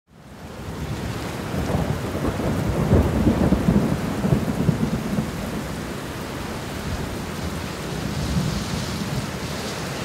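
Steady heavy rain with a low rumble of thunder, loudest a few seconds in; the sound fades in at the start.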